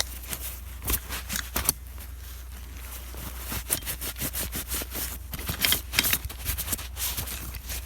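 Paper towel being rubbed and pushed into the staple channel of a DeWalt hand stapler to wipe out sealant gunk: irregular scratchy rubbing and scraping strokes, some louder than others, over a steady low hum.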